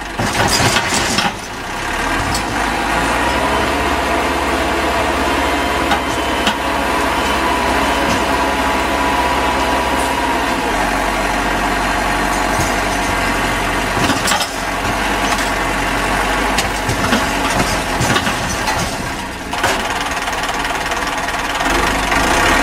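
Heavy machine's engine running steadily, with a few short knocks and clatters over it.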